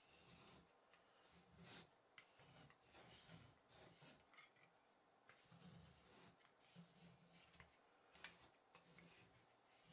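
Faint, irregular scraping of flat spatulas on the chilled metal plate of an ice cream roll maker as they spread and chop freezing cream base, with a few light taps.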